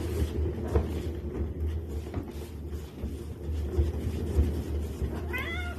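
Cat exercise wheel rolling under a walking Savannah cat, with a steady low rumble and scattered knocks. Near the end the cat gives one short meow.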